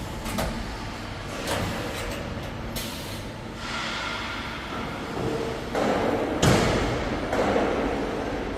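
Steady din of a busy exhibition hall, with several sharp knocks and clatters, the loudest a little after six seconds in.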